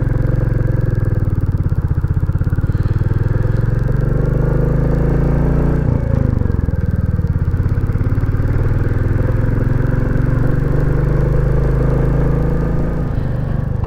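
Royal Enfield Classic 350's single-cylinder engine running as the bike pulls away from a junction and rides up the road. Its note drops briefly about six seconds in, then carries on.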